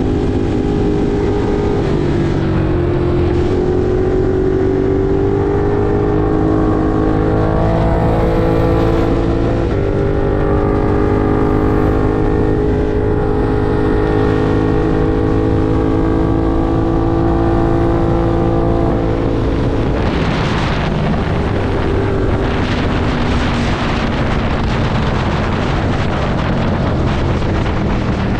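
Ducati Monster 1200 R's 1198 cc L-twin engine running hard under load, its pitch stepping up and down with the gear changes. About twenty seconds in the engine note falls back and wind rush on the microphone takes over, and the engine note comes back near the end.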